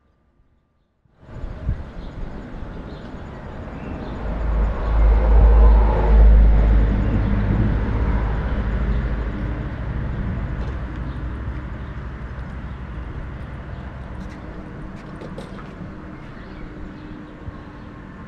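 A train passing the railway crossing: a rumble with a heavy low bass that builds to its loudest about five seconds in, then dies away slowly as the train recedes.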